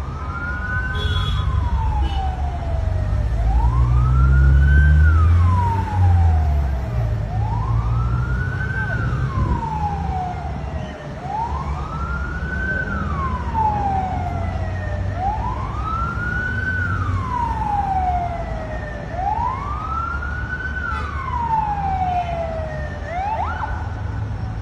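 Emergency vehicle siren wailing, its pitch rising quickly and falling slowly in cycles of about four seconds, switching to a faster rise near the end, over a low rumble.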